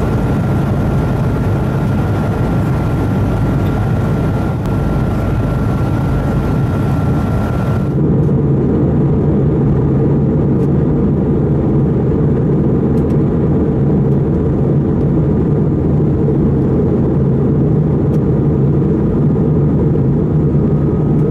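Steady cabin noise of an Airbus A220-300 in flight: the drone of its Pratt & Whitney geared turbofans and the rush of air, with a faint steady whine. About 8 seconds in, the sound changes abruptly to a deeper, duller drone without the whine or hiss.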